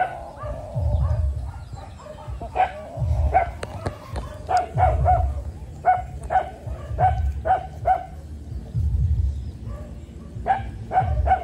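Short, sharp animal calls repeated in quick runs, most tightly packed from about six to eight seconds in, with separate bursts of low rumble between them.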